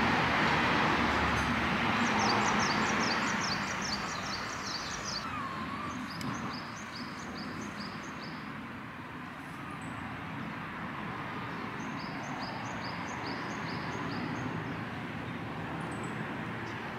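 A songbird singing runs of rapid, evenly repeated high chirps, three runs of a few seconds each. Underneath is a steady rushing background noise, louder for the first few seconds and then quieter.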